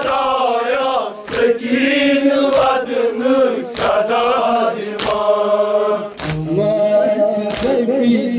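Male voices chanting a noha (mourning lament) together, with a sharp chest-beating (matam) strike about every 1.2 seconds keeping the beat.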